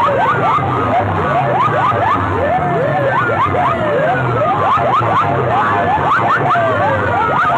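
Stacked horn loudspeakers of rival sound sets blaring at full volume, playing many siren-like sweeps at once, with tones rising and falling over one another above a low pulsing throb.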